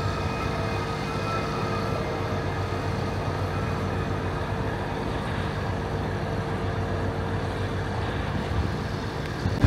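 Heavy construction machinery engines running steadily, a low, even drone with a constant hum.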